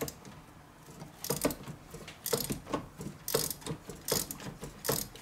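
Hand ratchet clicking in short runs of strokes, a run about every second, as a stubborn spark plug is slowly worked out of the engine's cylinder head.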